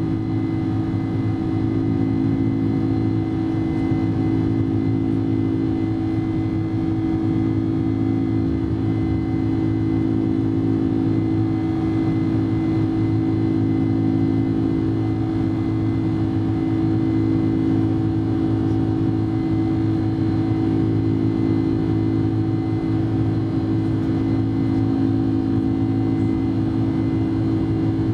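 Boeing 747-400's General Electric turbofan engines running at climb thrust just after takeoff, heard from inside the cabin: a loud, steady drone with a strong low hum and fainter high whining tones.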